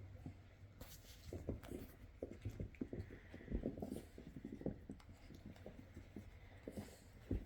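Month-old puppies play-fighting: a faint, irregular run of soft scuffles, taps and thumps from paws and bodies tussling.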